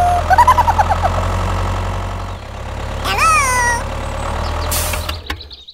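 A tractor engine idling with a steady low drone that stops shortly before the end. High, squeaky, sliding voice-like calls sound over it about half a second in and again about three seconds in.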